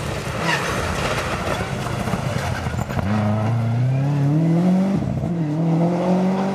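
Rally car passing at speed under hard acceleration. It starts as a noisy rush, then the engine note climbs steadily in pitch, drops briefly about five seconds in, and climbs again as the car pulls away.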